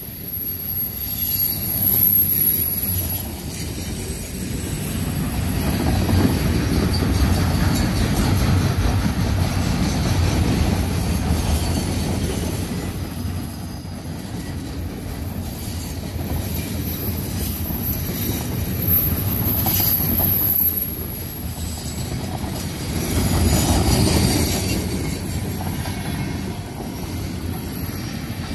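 Freight train of loaded flatcars rolling steadily past, wheels rumbling on the rails, with a thin high-pitched wheel squeal at the start and again about twenty seconds in.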